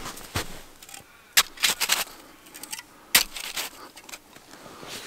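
A series of sharp, irregular clicks and knocks. The loudest come about a second and a half in and again about three seconds in, with a quick cluster between them.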